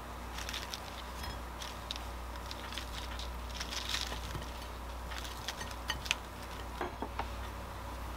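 Light handling noises of food being arranged on a plate by hand: a slice of toast and sausages set down onto lettuce, with scattered soft clicks and rustles.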